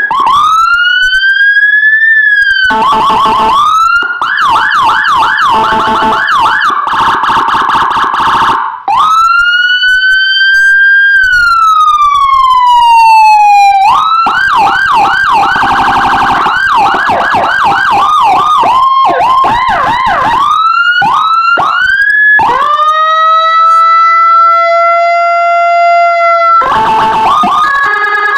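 Electronic police siren, a 200 W siren module through a horn speaker playing Whelen HHS3200-style tones, stepping through its patterns. It opens with rising whoops and fast yelping warbles, then a long wail that rises and falls back. More fast warbles follow, then a steady held tone for a few seconds near the end before rapid warbling starts again.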